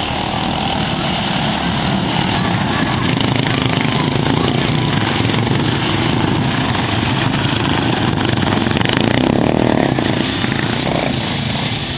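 Racing lawn mower engines running hard, a loud continuous engine noise that swells slightly midway.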